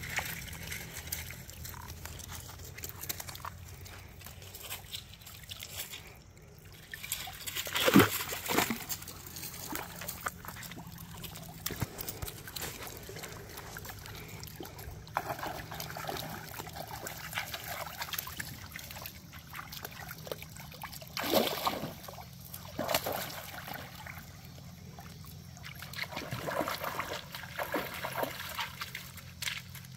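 Dogs wading through shallow creek water, the water sloshing and trickling around their legs. Several louder splashes come through, the loudest about eight seconds in.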